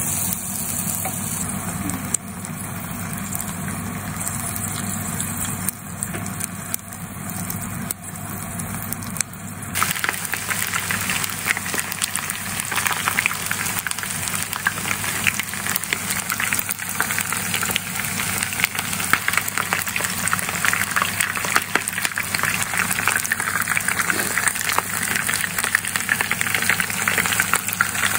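Food deep-frying in a pan of oil: a steady sizzle full of fine crackles, first tempura-battered mints, then floured chicken karaage pieces. The crackling grows louder and denser about ten seconds in. A steady low hum runs underneath.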